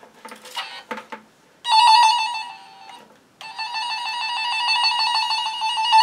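Tone-tracer probe (the 'hound' wand of a Tempo tone-and-probe set) sounding the tracing tone picked up from a phone cable's wire pair: a steady high-pitched tone comes in sharply, fades away briefly near the middle, then returns and grows louder. A few light handling clicks come before it.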